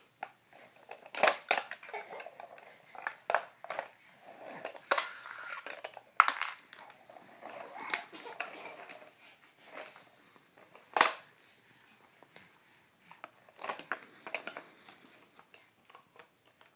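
Large plastic toy building blocks and a plastic block wagon being handled and knocked together on a hardwood floor: irregular clacks and clatters, the sharpest about a second, six seconds and eleven seconds in.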